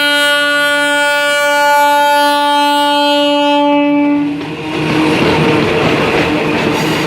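Train horn sounding one long steady blast that cuts off about four seconds in, followed by the train's wheels rumbling and clacking over the rails.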